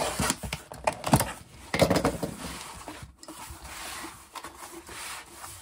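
Packaging and bags of tumbling grit being handled, rubbing and rustling, with sharper knocks about one and two seconds in.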